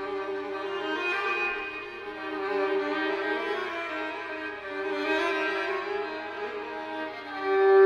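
Slow bowed-string music: sustained notes that change every second or so, with a louder held note near the end.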